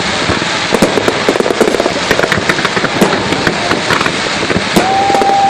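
Fireworks display: a dense run of crackling pops and bangs. A steady high tone comes in near the end.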